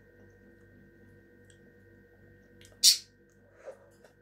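Faint steady room hum, then about three seconds in a short, sharp hiss of air as a mouthful of raspberries is taken in, followed by a softer mouth noise of eating.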